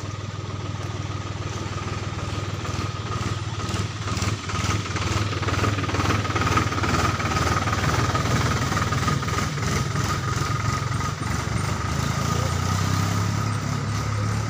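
An engine running steadily with a low hum and a thin whine, growing louder about four seconds in.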